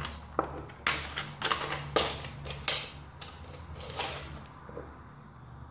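Irregular sharp metallic clicks and small rattles from handling a picked Corbin mortise lock cylinder and the tool being pushed into it, over a faint steady low hum.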